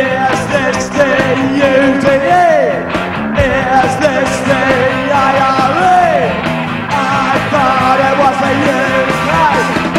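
Punk rock band playing live: electric guitar, bass guitar and drums under a lead vocal.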